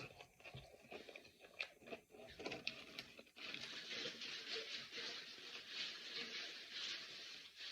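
A person chewing and crunching Tostitos multi-grain tortilla chips topped with melted cheese. Faint, scattered crunches at first, then a denser steady hiss from about three and a half seconds in.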